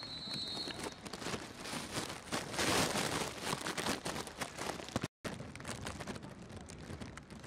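Rain pattering close to the microphone, many small ticks over a steady hiss, with a louder spell of hiss about two and a half seconds in. The sound cuts out for a split second about five seconds in.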